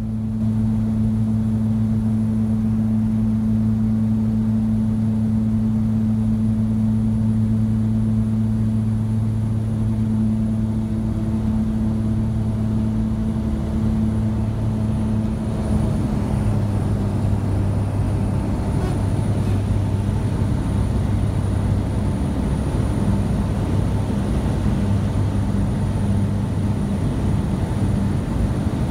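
A floatplane's engine and propeller running steadily, heard from inside the cabin as the plane moves on the water. About halfway through, the steady low tone turns choppier and rougher, with more rushing noise.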